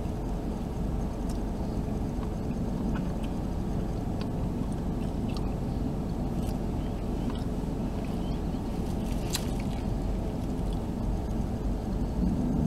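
Steady low running hum of a car, heard from inside the cabin, with a few faint small clicks. A stronger low hum comes in just at the end.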